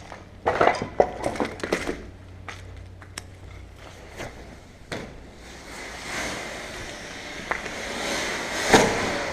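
Crunching and rustling, in a burst during the first two seconds and again as a rising scuffle later, with a few sharp clicks and one louder knock near the end.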